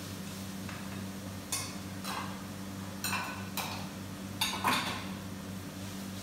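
Kitchen utensils clinking and scraping against a frying pan and small bowls during stir-frying, several short separate knocks. A steady low hum runs underneath.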